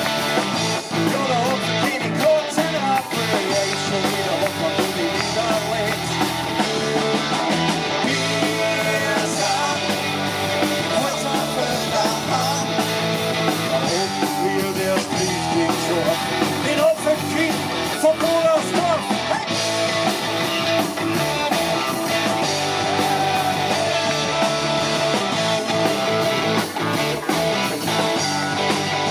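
Live rock band playing through a PA, with drum kit and electric guitars.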